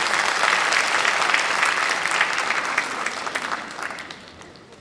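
Audience applauding in a large hall, the clapping dying away near the end.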